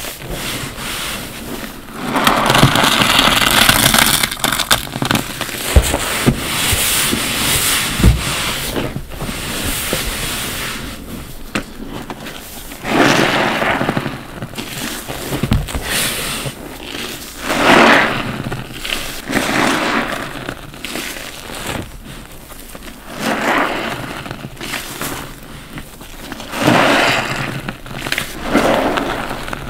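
Foam-soaked bath sponges squeezed by hand: repeated wet squelching with fine crackling of soapy foam, each squeeze a surge lasting a second or two, coming every few seconds.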